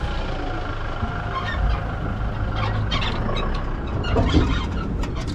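A Toyota ute towing a boat trailer, picked up close under the rig: a steady low rumble of engine and tyres on a dirt track, with scattered knocks and rattles from the trailer.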